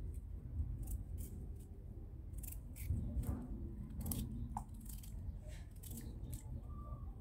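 Kitchen knife peeling a raw potato by hand: a run of short scraping strokes at an uneven pace, the blade shaving off the skin.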